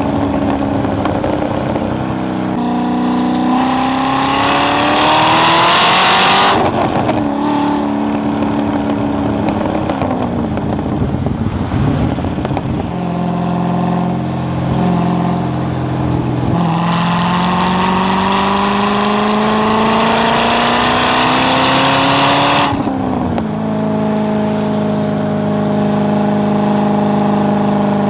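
Chevrolet Corvette C6 Z06's 7.0-litre LS7 V8 under hard acceleration, its pitch climbing through long full-throttle pulls and falling sharply at the gear changes. One pull ends about six seconds in and a longer one runs through the second half, before the engine settles to a steadier note near the end.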